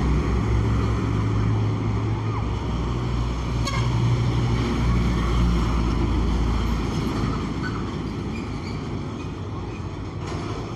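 Heavy tarp-covered cargo trucks driving past close by, their engines a loud low drone that fades away over the last few seconds.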